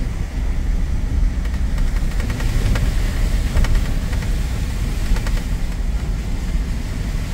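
A car driving slowly on a wet road, heard from inside the cabin: a steady low rumble of engine and tyres, with a few faint clicks.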